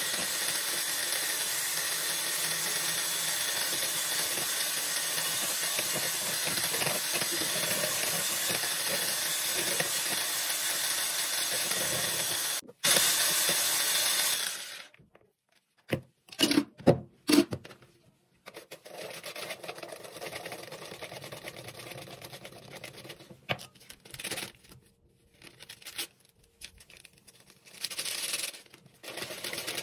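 Electric stick blender with a whisk attachment beating eggs and sugar in a bowl, running steadily, briefly cutting out about thirteen seconds in, then running louder for about two seconds before it is switched off. Afterwards only short scattered knocks and rustles of utensils and packaging, with a small packet torn open near the end.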